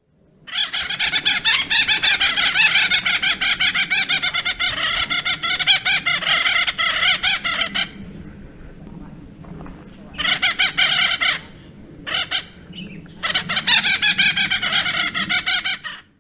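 Acorn woodpecker calling: a long bout of rapidly repeated calls, a pause of about two seconds, then a short bout, a brief one, and a last longer bout near the end.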